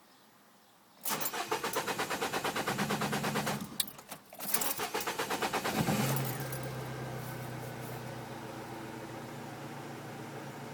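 Peugeot 206 GTi's 2.0-litre four-cylinder petrol engine cranked on the starter in two goes, the second catching about six seconds in and settling to a steady idle. The engine has a misfire, which was cured with a new coil pack and spark plugs.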